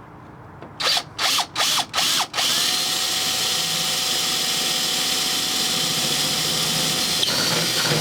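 Power drill with an 11mm bit drilling the keyhole through the garage door: four short bursts of the trigger about a second in, then a steady run.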